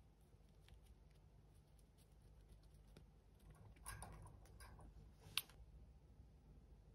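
Near silence with faint small clicks and rustles as a budgerigar moves on its perch and nips at a finger, with one sharp click about five and a half seconds in.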